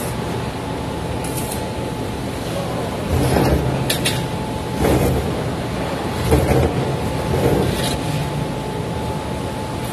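Steady machine hum of a metal shop with a faint constant tone, broken by a few knocks and clanks of steel parts handled on a steel welding table, the loudest about three, five and six seconds in.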